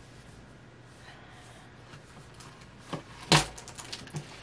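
A cardboard collector-doll box being handled: quiet for about three seconds, then a sharp knock from the box, followed by light crinkling as a plastic sleeve is pulled out of it.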